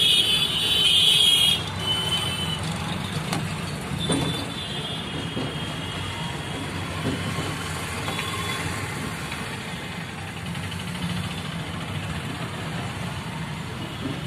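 Bus engine running and street traffic heard from inside a moving bus. A loud high-pitched horn sounds for about a second and a half at the start, with a shorter, fainter one about four seconds in.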